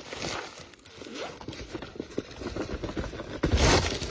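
Packaging being pulled and torn open by hand: scattered small crinkles and scrapes, with one louder rip about three and a half seconds in.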